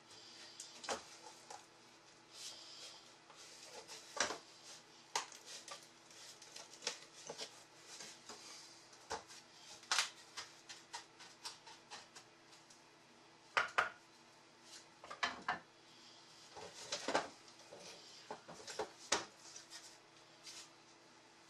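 Irregular metallic clinks and knocks of a metal hand tool and loose fasteners against the wood as an old wooden chair seat is pried loose and taken apart.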